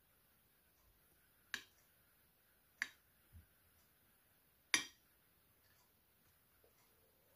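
Three sharp taps, a kitchen spatula knocking against a glass baking dish while spreading cream, with a soft low thud between the second and third.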